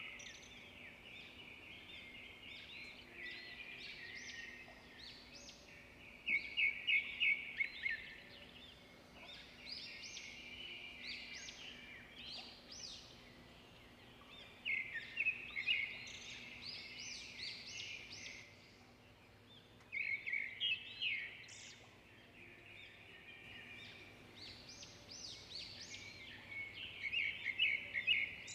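A bird singing short bursts of rapid chirps every few seconds, over faint steady outdoor background noise.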